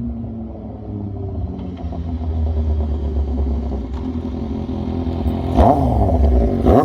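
An engine running and gradually getting louder, then revved sharply twice near the end.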